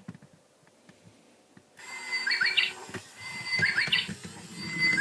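Battery-powered toy pigeon's speaker playing a recorded Japanese bush warbler 'hoo-hokekyo' song instead of a pigeon's coo, starting about two seconds in after a few handling clicks and repeating quickly, about once every second and a half, over the rattle of the toy's mechanism.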